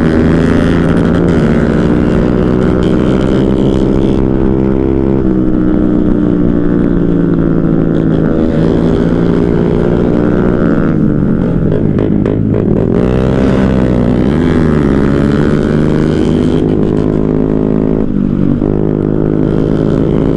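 Motorcycle engine running at riding speed, loud and steady. Its pitch drops and climbs back up about twelve seconds in, as the bike slows and accelerates again, with smaller shifts in pitch near five and eighteen seconds.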